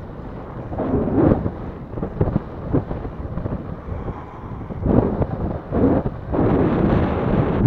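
Wind buffeting the microphone of a camera riding on a moving recumbent bike: a low rumble that swells and fades in gusts, strongest over the last second or so.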